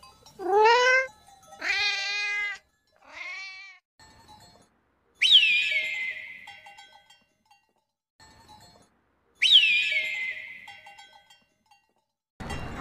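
Animal calls: three pitched cries in the first four seconds, the first rising and the next two wavering, then two sharp high calls, about four seconds apart, that slide down in pitch and trail off slowly.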